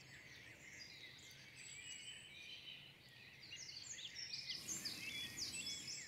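Faint woodland birdsong: small songbirds chirping and trilling in quick high notes, sparse at first and growing busier about halfway through.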